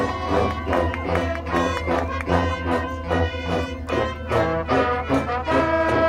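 Marching band playing, the brass section carrying a rhythmic passage of short repeated notes over drums, with a few held notes near the end.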